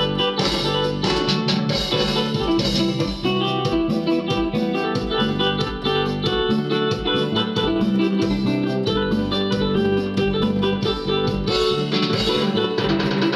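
Yamaha PSR-E463 keyboard playing a programmed accompaniment style, with a guitar voice leading over drums and bass with a steady beat.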